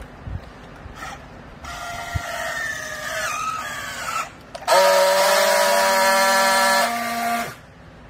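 Clothes compress baler machine running: a whine that wavers and slides in pitch for a couple of seconds, then, after a short break, a loud steady whine for about three seconds that drops slightly in pitch near its end and cuts off suddenly.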